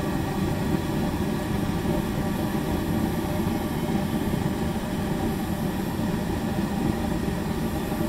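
Rheem high-efficiency gas furnace running at main flame: a steady, even rumbling hum from its draft-inducer motor and lit gas burners, with no change.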